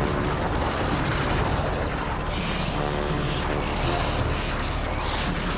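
A deep, continuous rumble with short hissing swells, laid over background music with a few held notes.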